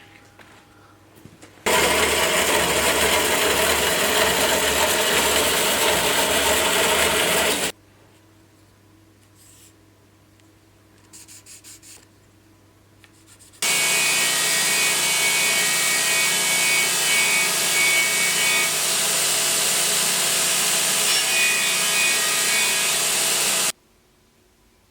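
A power tool grinding or sanding, in two steady stretches of about six and ten seconds that each start and stop abruptly.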